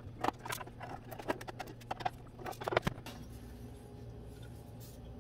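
Quick, irregular light clicks and taps of a car amplifier's metal cover and its small Torx screws being handled as the cover is taken off. The clicks die away about three seconds in, leaving a faint steady hum.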